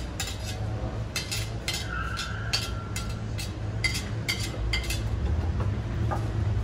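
A large metal skimmer clinking and scraping against a ceramic serving plate and the big pilaf kazan as pilaf is dished out: a string of sharp clinks at irregular intervals over a steady low rumble.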